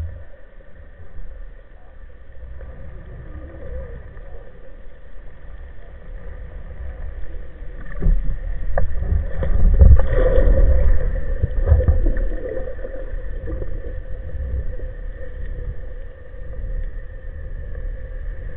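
Underwater sound picked up through a camera housing: a low rumble of moving water with a faint steady hum over it. The rumble swells for several seconds about eight seconds in, with a few sharp knocks.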